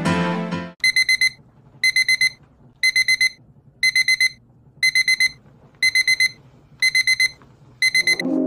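Music cuts off under a second in. Then a digital alarm beeps in quick groups of four, about one group a second: a wake-up alarm going off.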